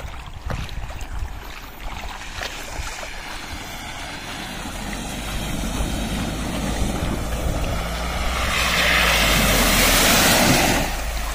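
Mahindra Thar SUV driving through a shallow river crossing: the engine running and water splashing up from the tyres, growing louder as it approaches. It is loudest as it passes close, with a rush of spray, then drops away sharply near the end.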